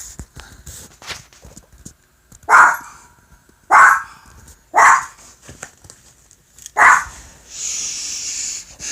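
A dog barking: four short, sharp barks about a second apart, the last after a slightly longer gap. It is followed near the end by a steady hiss lasting about a second.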